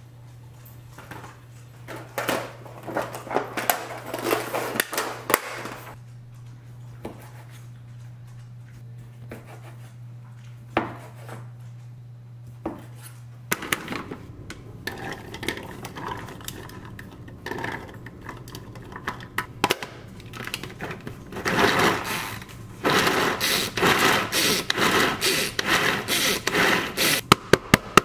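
A knife slicing cucumber on a wooden cutting board in quick clusters of strokes. Later, a hand-pull food chopper whirs in regular pulses, about three or four pulls a second, as it minces peeled garlic cloves.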